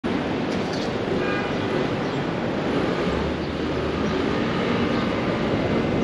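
Steady loud rumble of a moving vehicle, with faint high tones briefly about a second in.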